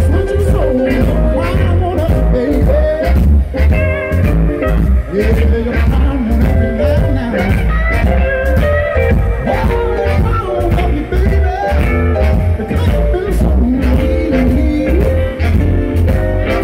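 Live blues band playing loud: a man singing over electric guitars, bass guitar and a drum kit with a steady beat and a heavy bass.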